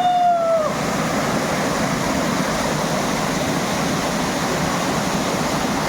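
Steady rush of falling water at a waterfall. A short pitched call sounds over it in the first half-second.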